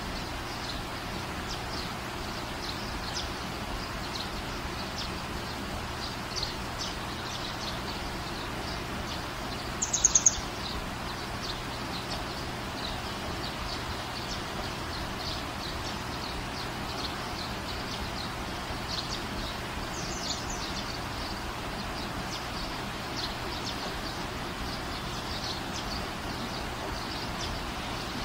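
Small birds chirping in short, repeated high notes over a steady background hiss, with a louder burst of quick falling calls about ten seconds in.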